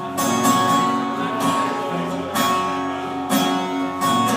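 Acoustic guitar strumming chords in a country song, with a strong strum about once a second and the chords ringing on in between. No singing.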